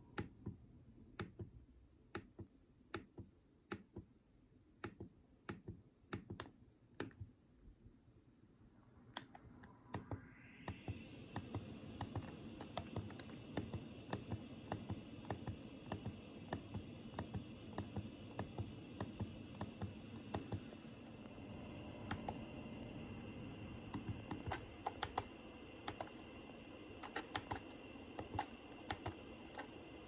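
Buttons on a Daikin wired air-conditioner remote controller clicking as they are pressed, about one or two presses a second. About ten seconds in, the air conditioner's fan starts, rising in pitch as it spins up, and its steady airflow hiss continues under the clicks.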